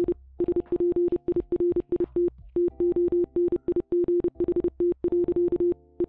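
Morse code (CW) tone keyed rapidly in dots and dashes, one steady low-pitched note, sending the Titanic's 1912 message to Cape Race: 'weather delightful'.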